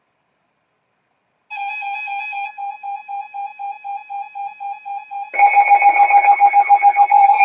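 Emergency Alert System alert tones: a rapid train of electronic beeps starts about a second and a half in, then a much louder, continuous harsh attention tone takes over near the end, signalling an incoming flash flood warning.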